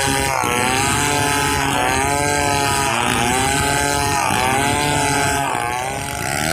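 Stihl 070 two-stroke chainsaw running at high revs while ripping a pule log into boards. Its pitch dips and climbs back again and again, about every second and a half, as the engine bogs under load in the cut.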